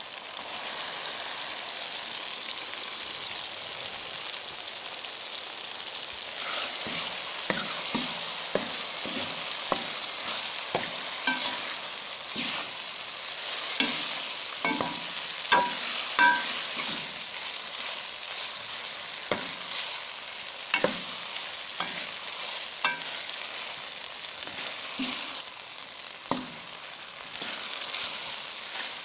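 Mutton liver pieces sizzling in hot oil and masala in a metal pan. From about six seconds in, a spoon scrapes and clicks irregularly against the pan as the liver is stirred in.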